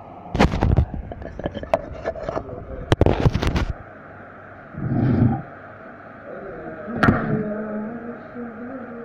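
Close handling noise at the microphone: bursts of clattering knocks and scrapes on a workbench in the first few seconds, a dull thump about halfway, and one sharp knock about two seconds later, over a steady background hum.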